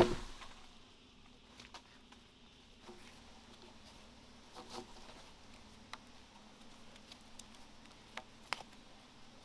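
Faint rustling and scattered small ticks and creaks of a plant-fibre cord being wrapped and tied around the notched end of a hand-hewn log. It opens on the dying tail of a heavy wooden knock.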